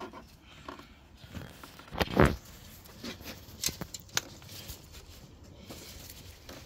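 Gloved hands working a rubber coolant hose onto its fitting on a BMW E38's radiator: rubbing and scraping with scattered clicks, and one louder burst of handling noise about two seconds in.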